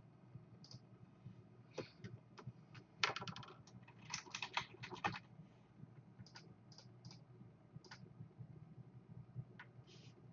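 Faint computer keyboard typing in two quick runs, about three seconds in and again about four to five seconds in, with single mouse-style clicks scattered before and after.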